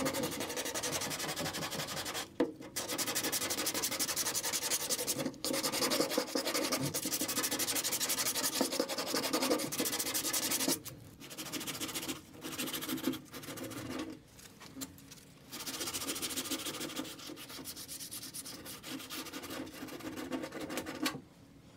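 Hand sanding of body filler with a sandpaper-covered sanding block: rapid back-and-forth rasping strokes, steady through the first half with two brief pauses, then in shorter, quieter, broken spells. This is the block-sanding stage that works the filler flat and smooth.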